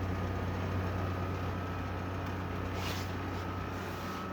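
Arctic King 5000 BTU window air conditioner running in cool mode with its fan on low: a steady low compressor hum under fan air noise, with a constant thin high tone above it.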